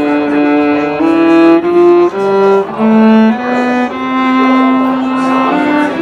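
Viola bowed close to the microphone, playing a slow line of sustained notes that change pitch about every half second, with a long held note of about a second and a half partway through.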